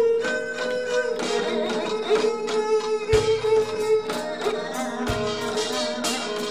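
Korean folk instrumental passage led by an ajaeng, the bowed zither, holding long sustained notes with shorter notes over them, and a low drum struck twice, about three and five seconds in.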